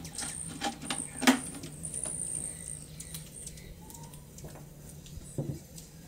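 Scissors cutting into a thin plastic soda bottle, with the bottle crinkling as it is handled: scattered small clicks and scratchy snips, the sharpest about a second and a quarter in.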